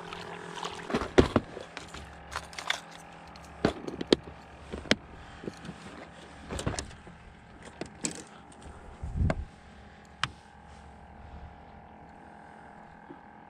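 Fishing gear being handled in an aluminum boat: irregular clicks, knocks and rattles of rods, a plastic tackle box and pliers, with a duller thump about nine seconds in. The handling stops about ten seconds in.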